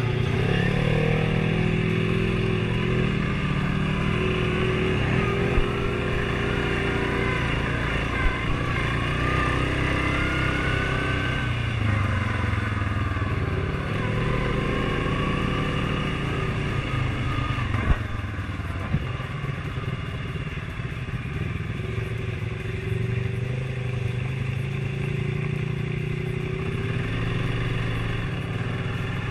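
ATV engine running under way, its pitch rising and falling as the throttle opens and closes, with a few sharp knocks.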